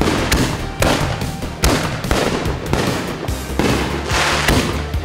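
A consumer fireworks cake firing shots into the air one after another, roughly one a second, over background music.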